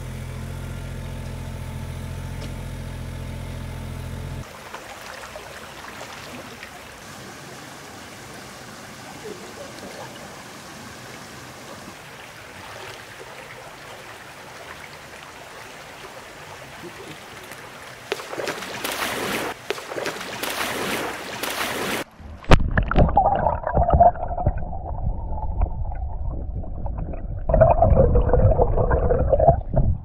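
A Hitachi mini excavator's diesel engine running steadily for the first few seconds, then a shallow stream flowing over stones. The water grows louder with splashing, and near the end loud gurgling and sloshing right at the microphone takes over.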